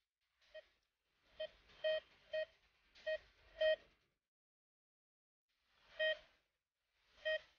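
Metal detector giving about eight short, same-pitched beeps at irregular intervals, with a pause of about two seconds before the last two, as its coil is held over the freshly dug hole: the detector signalling a metal target in the soil.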